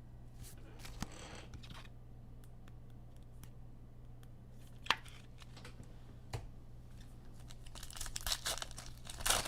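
Plastic card-pack wrapper crinkling and tearing as trading cards are handled: soft rustles about a second in, a sharp click about five seconds in, and a longer bout of crinkling near the end, over a faint steady hum.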